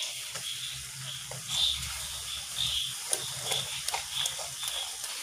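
Chilli powder and turmeric frying in hot oil in an aluminium kadai, stirred with a wooden spatula, with scattered sharp clicks of the spatula against the pan in the second half. A high repeated chirping, about two to three a second, runs through the background.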